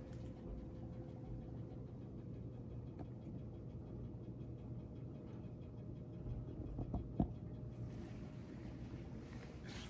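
A steady low hum, with a couple of soft thumps about seven seconds in as a cat jumps up onto a raised ledge.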